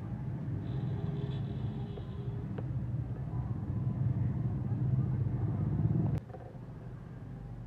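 Low, steady mechanical rumble like a running engine, growing slowly louder and then cutting off suddenly about six seconds in, with a few faint ticks.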